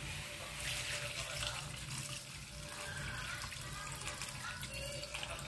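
Water poured from a container into a metal wok over chunks of chicken, potato, onion and ginger, a steady pour that starts about half a second in.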